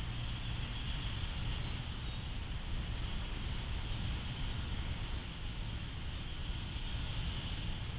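Steady outdoor background noise recorded by a trail camera's microphone: an even hiss over a low rumble, with no distinct events.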